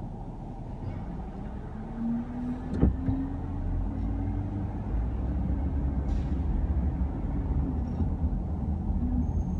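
Garbage truck running with a steady low rumble. A sharp click comes just under three seconds in, and the engine then runs louder and heavier under load, with a faint rising whine.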